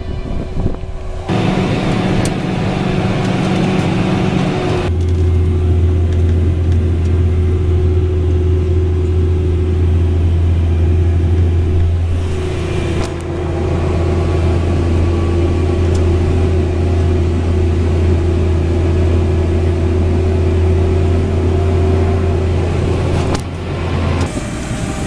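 Claas Axion tractor's diesel engine running loud and steady under load while ploughing: a deep steady drone with a humming tone above it. The sound changes abruptly about a second in, near five seconds and near the end.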